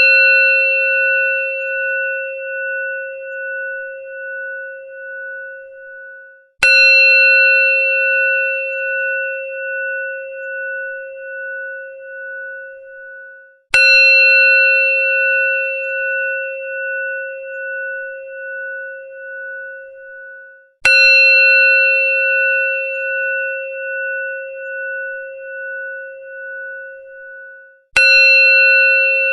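Hindu temple bell struck four times, about once every seven seconds. Each strike rings on with a wavering, slowly fading tone until the next, and the bell is still ringing from a strike just before the first.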